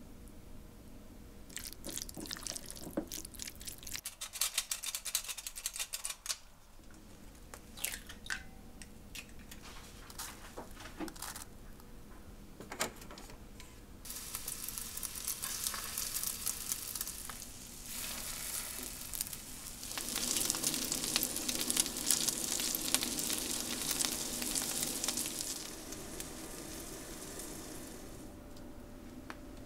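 A spoon mixing seasoning sauce into cooked cockles in a glass bowl, with light clicks and scraping. About halfway through, egg-coated cockle fritters start sizzling as they fry in oil in a frying pan, growing loudest in the last third.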